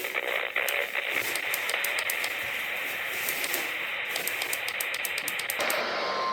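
Weather radio receiver hissing with static and faint crackling clicks between transmissions. About six seconds in, a steady high single-pitch tone begins: the 1050 Hz NOAA Weather Radio warning alarm tone that signals an incoming alert.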